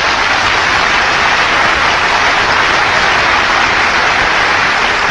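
Large audience of delegates applauding steadily, the sound of many hands clapping at once.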